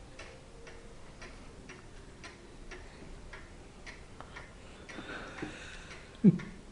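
A clock ticking steadily, about two ticks a second. A brief, loud, low sound comes near the end.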